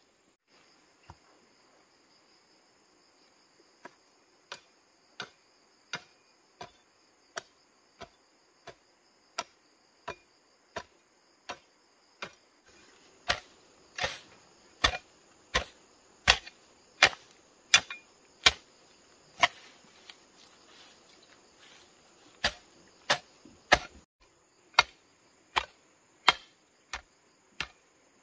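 Metal hoe blade chopping into dry, weedy soil in a steady rhythm, about three strokes every two seconds; the strokes grow louder about halfway through and pause briefly near the end. A steady high insect drone runs beneath.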